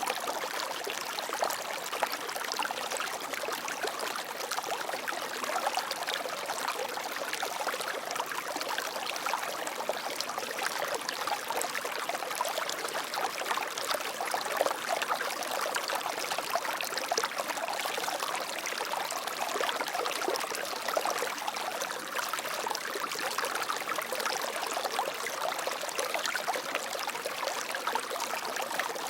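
Water flowing and trickling steadily, a bright splashing stream sound with little low rumble.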